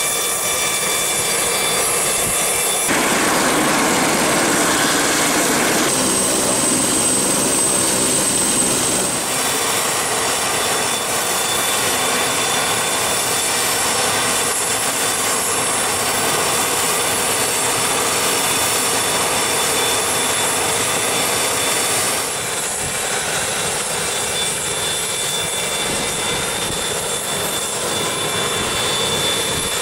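Business-jet turbofan engines running on an airport apron: a steady rushing noise with a high whine. The sound changes abruptly several times.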